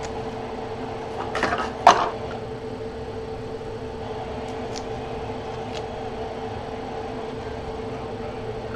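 Steady room hum with a constant low tone. About two seconds in, a short scrape and a sharp click as a trading card and a rigid plastic toploader are handled, then a few faint ticks as the card is slid into the holder.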